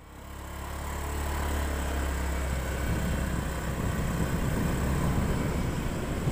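Motorcycle engine running steadily as the bike rides along a lane at low speed, a low hum with a steady hiss over it. The sound fades in over the first second.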